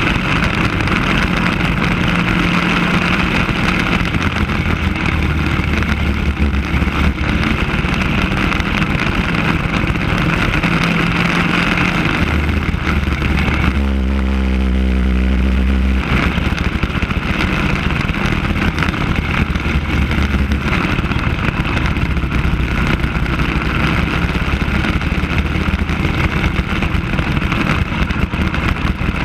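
Onboard sound of a racing kart's single-cylinder engine running hard at race pace. About halfway through, the engine note drops for a couple of seconds through a corner, then picks back up.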